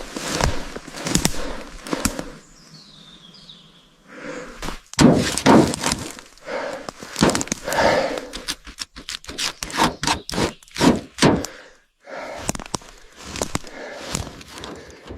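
A series of irregular knocks, thuds and clatter, with sudden breaks between groups of strikes. A short quiet stretch early on carries a faint high chirp.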